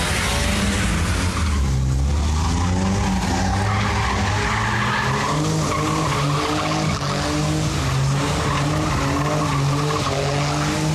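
Car doing a burnout: the engine is held at high revs, its pitch rising and falling, while the spinning tyres squeal and skid on the tarmac.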